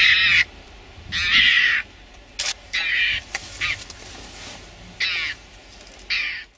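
Mongoose giving about eight short, high-pitched defensive calls at irregular intervals while cornered by lionesses.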